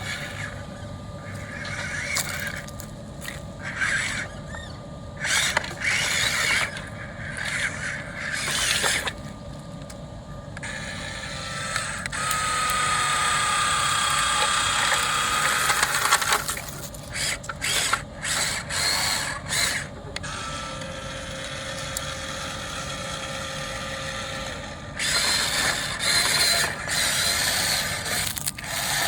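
Radio-controlled model excavator's electric motors and gears whining in short stop-start spurts as it works, with one longer steady whine near the middle.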